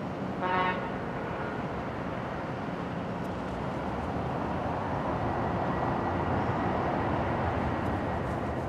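Airbus A330-300 airliner rolling out just after touchdown: a steady jet-engine roar that builds louder through the second half, with a brief pitched squeal about half a second in.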